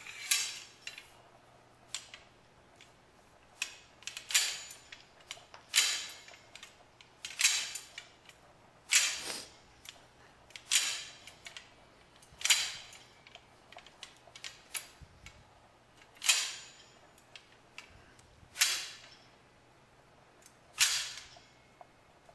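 Telescoping steel high-low bar of a Merits electric bed being extended hole by hole. The chrome inner section slides in the painted tube and its spring-loaded button pops into each next hole, a sharp metal click with a brief scrape, about ten times, one every one and a half to two seconds.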